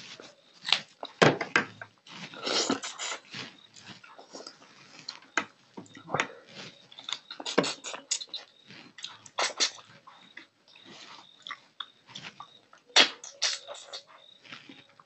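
Close, wet eating sounds of a man eating fish in curry with his hands: irregular chewing, lip smacks and sucking, with louder smacks about a second in and near the end.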